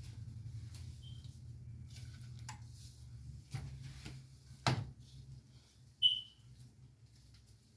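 Scattered knocks and clatters of kitchen prep work, with one sharp knock a little before five seconds in and a short high beep about a second later, over a steady low hum.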